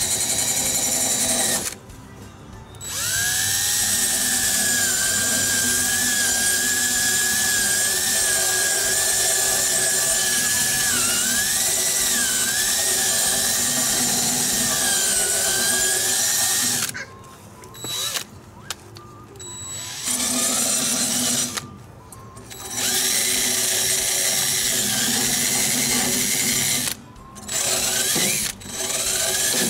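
Cordless drill spinning a wire wheel brush against a steel mower blade held in a vise, scrubbing caked gunk off it. The drill runs in long bursts with a steady whine and a fizzy scrubbing hiss, stopping and restarting several times. Its pitch rises as it spins up and dips when the brush is pressed into the blade.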